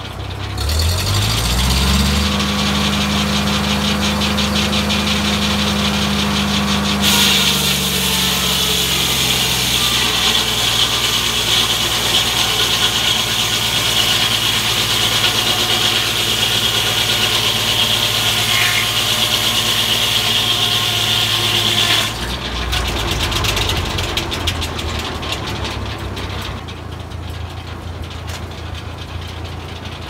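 Tractor-driven Foley Belsaw M-14 circle sawmill: the engine revs up in the first couple of seconds. The blade then cuts through a log from about seven seconds in to about twenty-two seconds, a loud high sawing noise with the engine note dropping under the load. After that the machinery runs on more quietly. The owner thinks the old blade is warped and out of balance.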